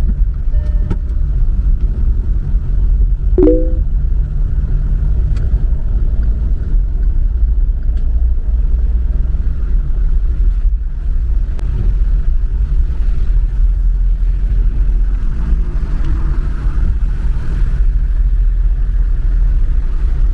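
Car driving on a wet road: a steady low rumble of engine and tyres. A short pitched tone cuts in briefly about three and a half seconds in.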